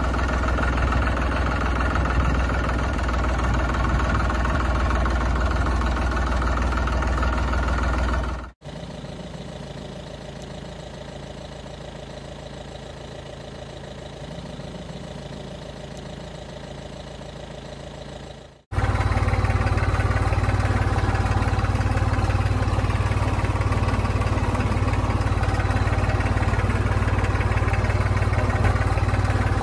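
Tractor engine running steadily, spliced together in three pieces: loud at first, cutting abruptly to a quieter engine about eight seconds in, then back to a loud engine from about nineteen seconds.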